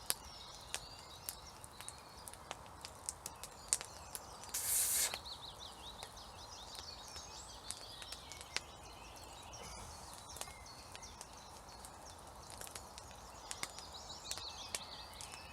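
Wood campfire crackling with scattered small pops under a frying pan, with birds chirping in the background. A brief burst of hiss about five seconds in.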